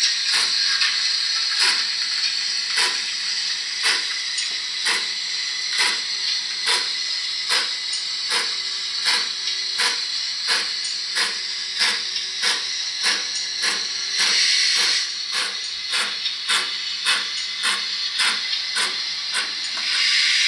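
Digital steam sound from a Zimo MX648R decoder with Mr Soundguy sounds, playing through a small speaker in the tender of a Hornby OO gauge GWR 28xx 2-8-0 model locomotive. Exhaust chuffs quicken steadily from about one a second to over two a second as the loco gets under way, over a constant hiss of steam, with louder surges of hiss about 14 seconds in and again at the end.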